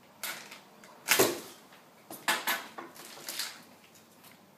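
Plastic packaging being handled, crinkling in four short bursts, the loudest about a second in.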